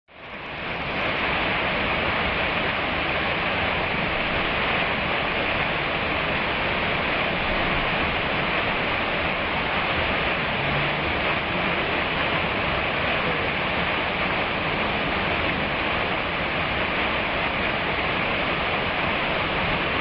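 Waterfall pouring down a rock face close by: a steady rush of falling water, fading in over the first second.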